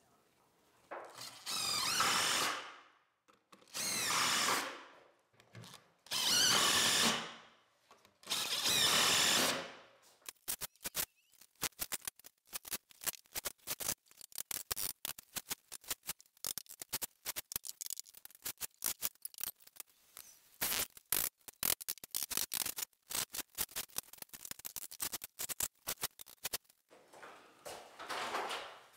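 Power drill driving screws into wooden ceiling framing, in four separate runs of about a second and a half each, then a long stretch of rapid, irregular clicks and taps.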